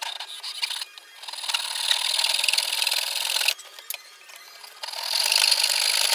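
Japanese-style handsaw cutting into a wooden block, in fast back-and-forth strokes. The sawing stops for about a second past the middle, then starts again.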